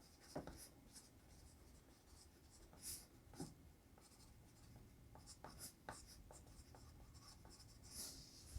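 Near silence with faint, scattered small ticks and scratches from a Kita-Boshi 2mm mechanical pencil being handled.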